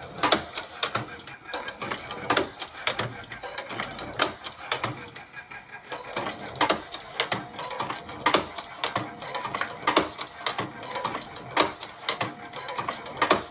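Old-model Kara Şimşek automatic cigarette rolling machine with a tube feeder running through its filling cycles: a string of sharp mechanical clacks, about one to two a second and not quite even, over a steady motor hum. The machine has no double-stroke attachment, so it sometimes does not fully eject the tubes.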